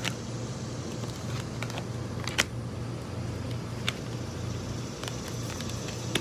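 A deck of tarot cards being handled and shuffled, with a few light clicks and taps of cards and long fingernails, the loudest about two and a half seconds in. A steady low hum runs underneath.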